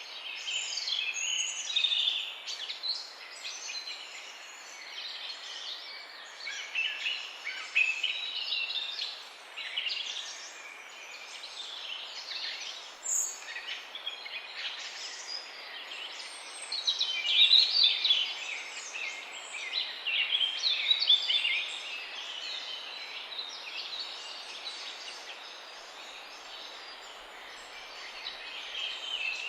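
Many songbirds singing at once in a continuous chorus of overlapping chirps and trills, over a steady background hiss.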